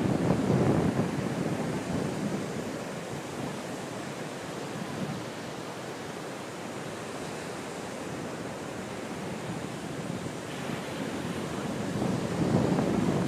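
Ocean surf breaking on a sandy beach, a steady wash with wind buffeting the microphone. It is louder at the start and swells up again about twelve seconds in.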